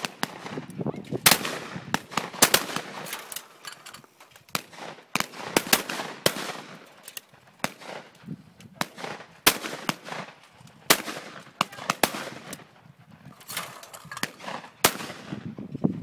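Several shotguns firing at clay targets in a fast, irregular run of shots, often two or three within a second, each with a short echoing tail, with a few brief lulls.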